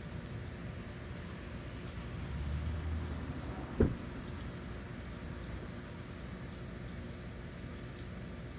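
A single sharp knock about four seconds in, over a low steady background with faint scattered ticks.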